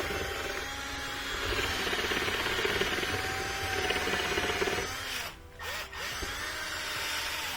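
A long dryer-vent cleaning brush scrubbing and scraping inside the dryer's exhaust vent tube, loosening lint and dirt. It stops briefly about five seconds in, then starts again and stops just before the end.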